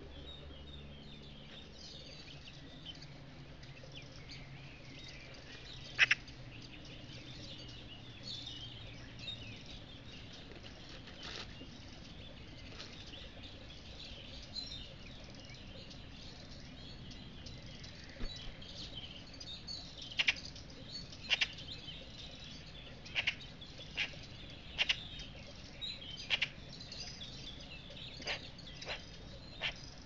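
Woodland ambience with small birds calling faintly and high. One sharp tap about six seconds in, then a run of sharp taps, about one every second, in the second half.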